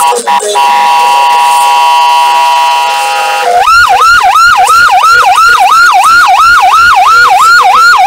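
Electronic siren sounding from a mock police car's roof loudspeaker: a steady held tone for about three and a half seconds, then a fast yelp rising and falling about three times a second.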